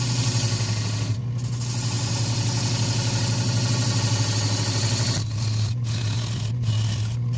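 Wood lathe running with a steady low hum while a turning tool cuts a spinning green Sissoo (Indian rosewood) bowl blank. The hissing scrape of the cut stops briefly about a second in and several times near the end.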